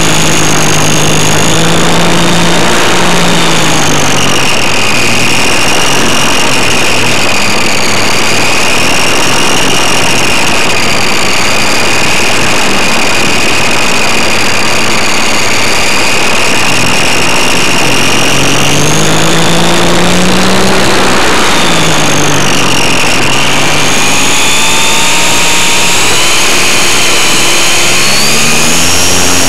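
Electric motor and propeller of a GWS Beaver RC model plane, heard up close from on board: a loud, steady whine whose pitch rises and falls several times, most clearly about two-thirds of the way through and again near the end, over heavy wind rush on the microphone.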